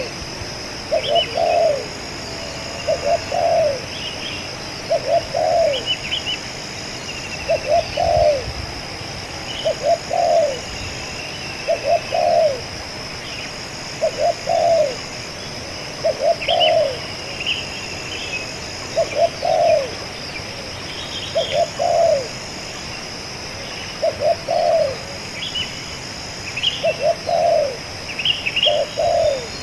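Spotted dove cooing over and over, one phrase about every two seconds. Small birds chirp faintly behind it over a steady high-pitched drone.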